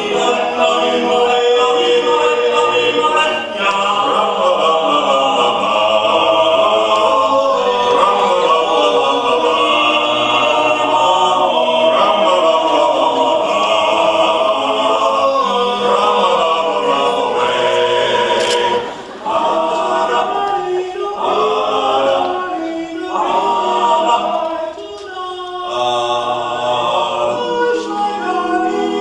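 Male barbershop quartet singing a cappella in close four-part harmony. About two-thirds of the way in, the singing briefly drops away. It comes back as shorter, detached notes.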